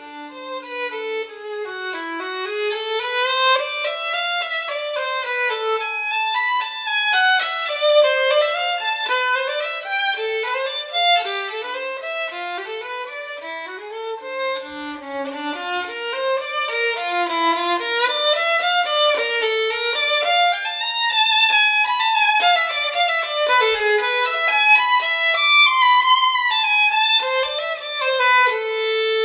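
Background music: a solo violin playing a fast, flowing melody of quick rising and falling runs of notes.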